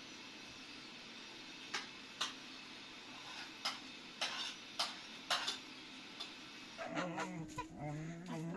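A string of sharp, irregular clicks or taps, about one every half second for a few seconds. Near the end a dog starts whimpering with wavering, drawn-out whines.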